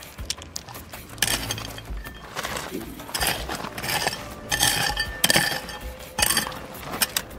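Hard stones clinking and scraping against one another in irregular runs of sharp knocks, loudest in the middle of the stretch.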